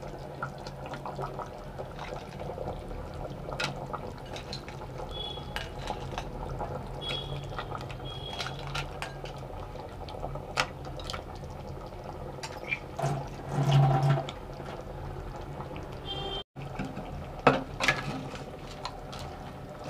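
Whole crabs being put into a thick spicy gravy in a clay pot and stirred in: wet sloshing of the gravy with scattered knocks of shell and spoon against the pot, over a low steady hum.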